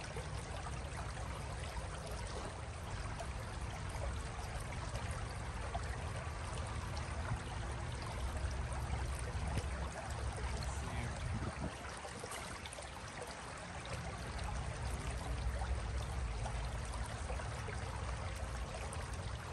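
Shallow stony creek flowing, a steady rush of water with a low rumble underneath.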